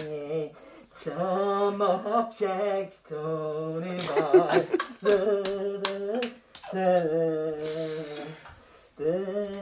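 A man humming a wordless tune in held notes, phrase after phrase with short breaks, and a few sharp clicks about five to six seconds in.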